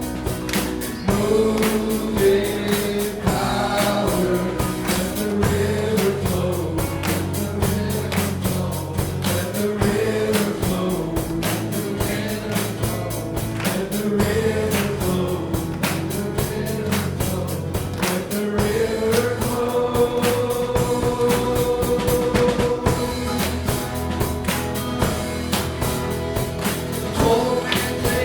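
Live praise and worship band playing with a group of voices singing a slow melody over sustained chords, bass and a steady beat.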